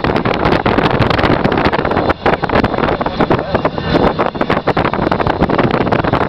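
Wind buffeting the microphone over the road and tyre noise of a moving car, a loud rush full of short crackles.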